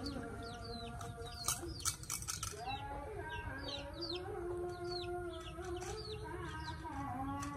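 Birds chirping in quick, short falling chirps, several a second, over a steady pitched hum that shifts to a new note a few times. A short run of splashing from a baby monkey swimming in a plastic tub of water comes about one and a half to two and a half seconds in.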